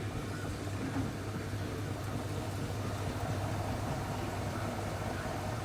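Neff washing machine running with a steady low hum as its drum turns, trying to balance an uneven load that has triggered its E32 unbalanced-spin error.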